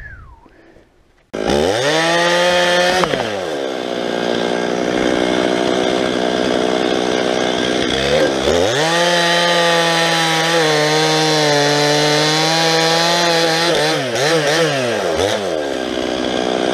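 Stihl 391 two-stroke chainsaw starting abruptly about a second in, revving and dropping back, then running at full throttle under load as it bucks the trunk of a felled dead oak. Its pitch wavers and dips as the chain bites into the wood.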